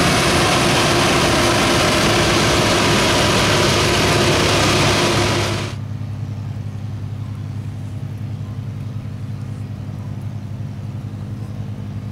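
Combine harvester working, a loud dense machine noise over the engine. A little over halfway through it drops suddenly to a quieter, steady low engine hum.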